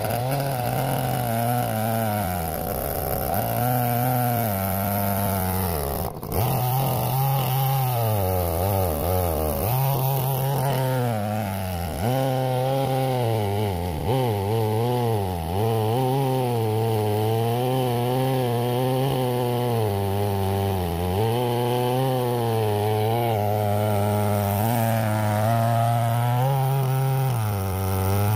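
Stihl 070 two-stroke chainsaw on a chainsaw mill running at high revs while ripping a black walnut log. Its pitch sags and recovers again and again as the bar bites in under load.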